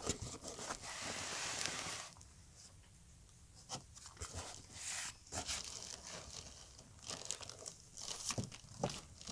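Packaging being handled: cardboard box flaps, foam packing inserts and plastic wrap rustling and crinkling. A steady rustle for about two seconds, a short lull, then scattered crinkles and scrapes.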